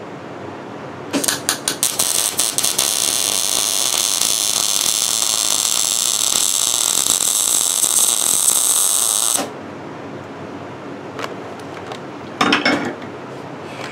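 Wire-feed (MIG) welder arc laying a bead on a steel tab: a few short sputters as the arc strikes, then about eight seconds of steady, loud crackling that cuts off suddenly. A few clicks and a brief rustle follow near the end.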